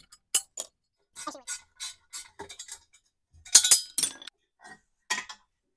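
Metal engine parts clinking and knocking as a shorty exhaust header is worked loose from a V8 cylinder head: a run of short sharp clinks, with a louder ringing clatter about three and a half seconds in.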